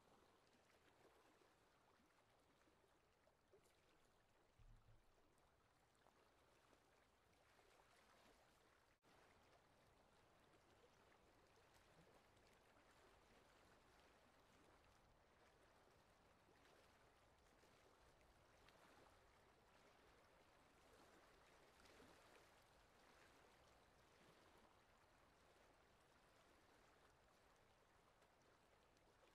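Faint, steady rushing of a shallow river flowing over stones, with a brief low bump about five seconds in.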